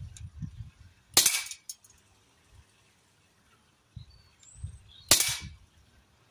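Huntsman FAL 4.5 mm CO2 air rifle firing two shots about four seconds apart, each a sharp crack followed by a brief hiss of gas. Low handling bumps come between the shots.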